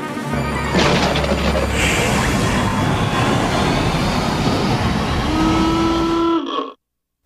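Cartoon sound effect of the Mask's green whirlwind transformation: a loud, steady rushing whoosh of the spinning tornado. A couple of held tones join in near the end, and it cuts off suddenly about six and a half seconds in.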